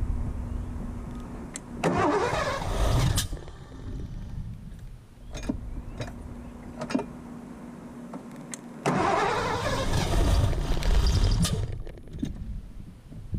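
1984 Ford LTD Crown Victoria's 302 V8 being started twice: each time it cranks, catches and runs for a second or two, then putters out and dies. It will not keep running even with the ignition timing freshly set to 10–20 degrees, and the owner is unsure whether it is getting too much fuel or not enough. A few sharp clicks come between the two attempts.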